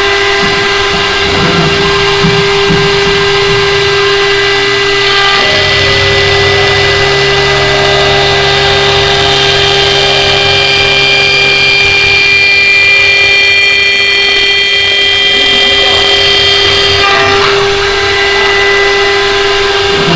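CNC wood-turning lathe running with a steady motor whine, its tones shifting a few times as the cut changes.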